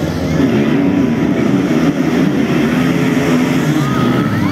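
A pack of motocross dirt bikes launching off the start line together, engines revving hard as they accelerate up the track. One engine's pitch rises near the end.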